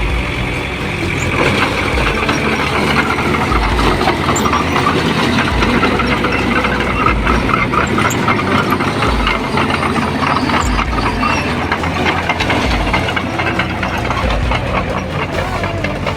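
Heavy earthmoving machine running, a steady engine noise with a dense, rapid metallic clatter.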